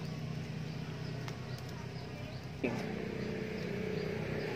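A steady engine-like hum runs throughout, with a few faint crackles from burning dry palm fronds. About two-thirds of the way in, a sharp click is followed by the hum switching abruptly to a stronger, higher drone.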